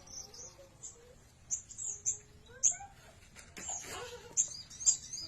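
A young cici bird practising its song: short, high, irregular chirps and squeaky sliding notes, with no steady phrase yet.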